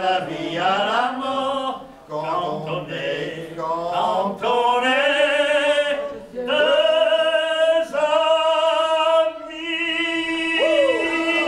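Two men singing unaccompanied in French, the chorus of a song about two friends, slowing into long held notes for the last words.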